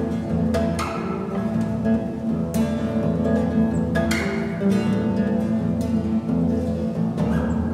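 Fretless acoustic bass guitar being plucked: low notes ring on under the rich reverb of an underground hole, with several sharp, bright percussive string attacks scattered through.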